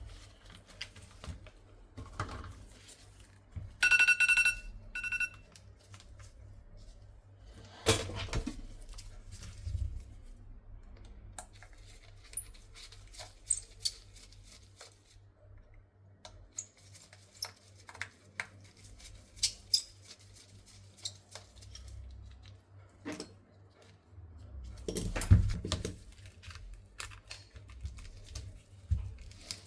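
Small tools and parts being handled at a phone-repair bench: scattered light clicks, taps and knocks, with a louder handling rustle near the end. About four seconds in, an electronic device beeps twice, a longer beep and then a short one.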